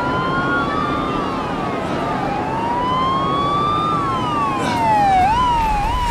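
Police car sirens, more than one overlapping, wailing in slow rising and falling sweeps. Near the end they switch to quicker, shorter up-and-down sweeps.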